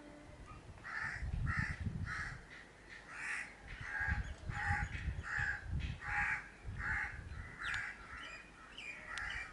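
A crow cawing over and over, about a dozen short caws at roughly two a second, starting about a second in.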